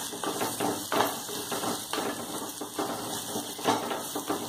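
Wooden spatula stirring and scraping onion-tomato masala in a clay pot, in quick repeated strokes over a light frying sizzle, as the masala is sautéed with the chilli-spice paste.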